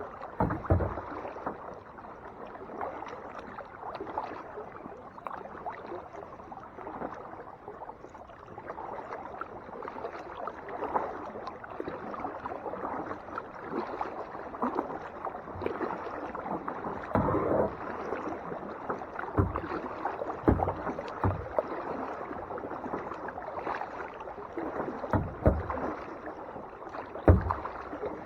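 Kayak paddling: the paddle dipping and splashing in lake water, with water running off the blades and a few louder thumps at irregular moments.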